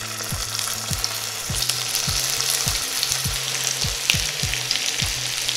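Butter, sugar and oil sizzling and crackling in a hot frying pan as boiled potatoes are set into it, the frying growing a little denser as more potatoes go in.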